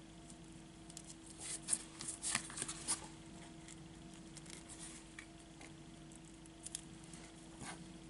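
Paper tag and ribbon being handled: a cluster of light crisp rustles and clicks from about a second and a half in to three seconds, and a couple more near the end, over a steady low hum.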